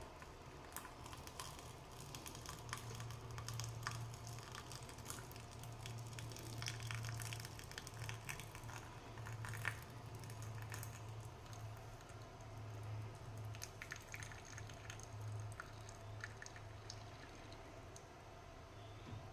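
Chai simmering in a pan: faint bubbling with many small irregular pops and clicks over a low steady hum.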